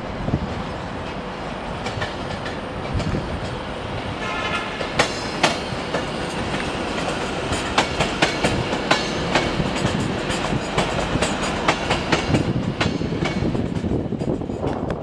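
Class 390 Pendolino electric train running along the platform, its wheels clicking irregularly over rail joints and points from about five seconds in.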